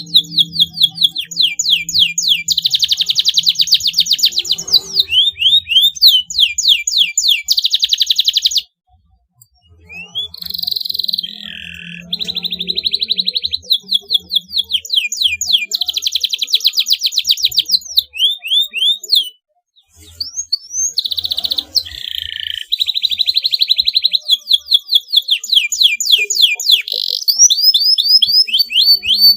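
Domestic canary singing long song phrases of fast rolled trills and rapid repeated notes, pausing briefly twice, about nine and nineteen seconds in.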